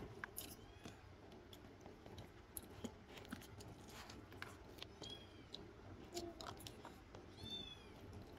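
Faint chewing with small clicks of plastic utensils, and twice a brief high mew from a cat, about five seconds in and again near the end.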